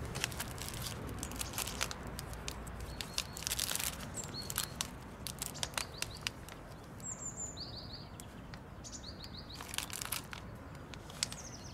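Packaging rustling and crinkling in bursts with scattered clicks as items are handled. A small bird chirps a few short notes in the middle.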